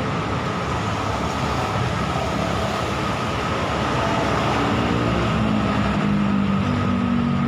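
Steady road traffic noise with a constant high hum.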